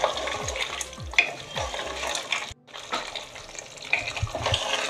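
Wooden spatula stirring and scraping thick mutton curry in an open metal pressure cooker on the flame, the masala sizzling wetly as it is sautéed. The sound cuts out for a moment about halfway through.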